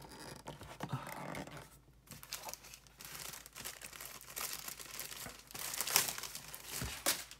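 Handling noise of a plastic action figure being posed and set down on a table, followed by crinkling. The crinkling is loudest about six seconds in, and there is a sharp click near the end.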